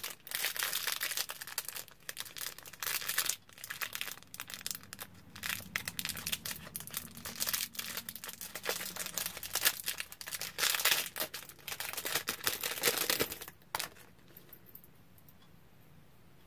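Small clear plastic bag crinkling and rustling in the fingers as a sweater clip is worked out of it, in irregular crackly bursts that stop a few seconds before the end.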